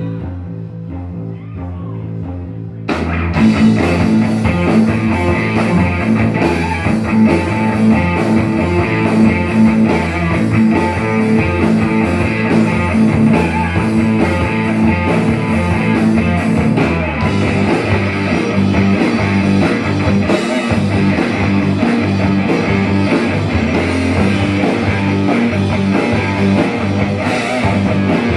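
Live rock band playing an instrumental stretch: about three seconds of quieter, low held notes, then the drums and electric guitars come in loud together and the full band plays on.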